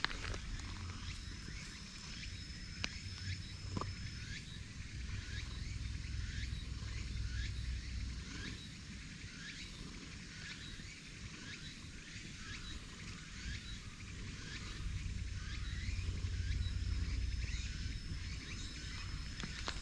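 Outdoor ambience: a long, even run of short high chirps, a couple a second, with a thin high steady tone now and then, over a low rumble that swells near the end.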